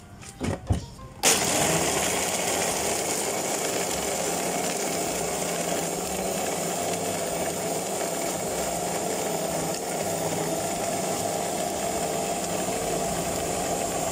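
Electric drink blender switched on a little over a second in, then running steadily.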